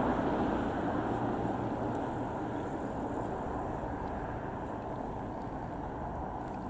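Fukushima Kōtsū 7000 series electric train running on, its rumble fading slowly and steadily as it draws away.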